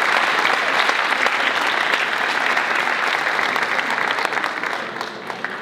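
Audience applauding steadily, a dense clapping that fades near the end.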